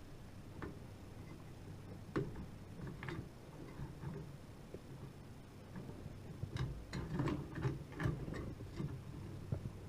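Faint scattered clicks and taps of hands working a Cooler Master Hyper 212 Evo CPU cooler's mounting pins into a motherboard's holes, thickening into a run of small clicks and rattles about two thirds of the way through.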